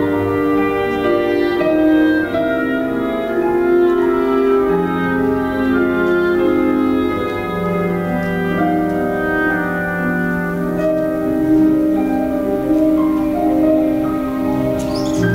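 Instrumental music accompanying a ballet, with long held notes and a slow-moving melody over sustained chords.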